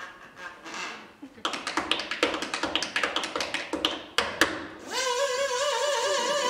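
A fast flurry of tap-shoe taps for about three seconds, then from about five seconds in a single long held note with vibrato.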